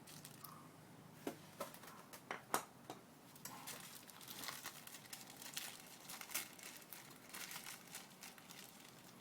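Plastic bag crinkling as it is handled, with scattered light clicks and taps.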